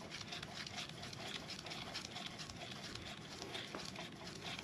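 Faint, scratchy rubbing of a dry abrasive strip wrapped around an F23 crankshaft journal, pulled back and forth by strings to polish out light scoring on the journal.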